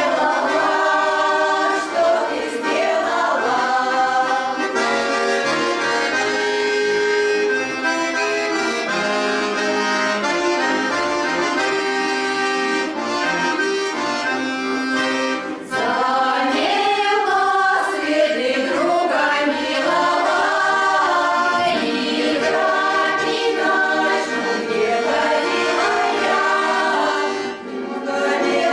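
A Russian folk song performed by a choir with accordion accompaniment. Held accordion chords lead in the first half, and the singing voices come to the fore a little past halfway.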